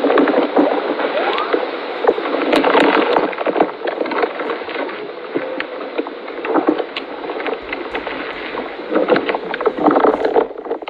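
A camel chewing cactus: a dense, unbroken run of crunching clicks and chomping.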